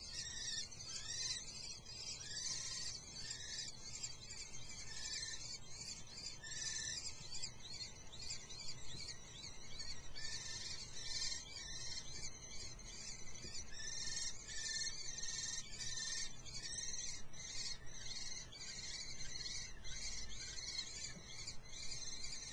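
Common kestrel nestlings begging for food, a steady chorus of short, high-pitched calls repeated several times a second and overlapping one another.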